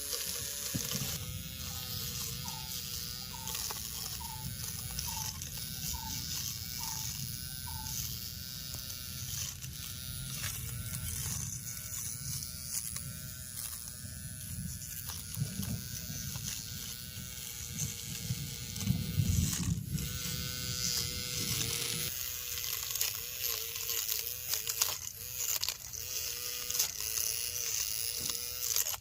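Small DC motor of a homemade grass cutter running with a steady buzzing whine whose pitch wavers a little, with a louder, rougher stretch about two-thirds of the way through.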